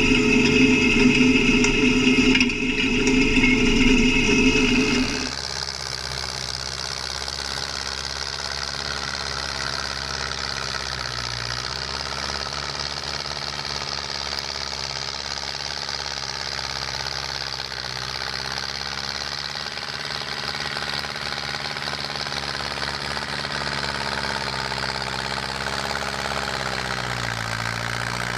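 MTZ-82 (Belarus) tractor's four-cylinder diesel running steadily under load as it pulls a tine cultivator through stubble, its pitch dipping briefly twice as the engine takes the strain. The first five seconds are louder and closer, heard from on the cultivator as its tines drag through the soil.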